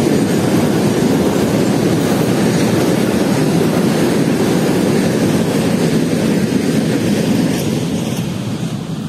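Container freight wagons rolling over a steel truss railway bridge: a steady, loud rumble of wheels on rail that eases off near the end as the last wagon passes.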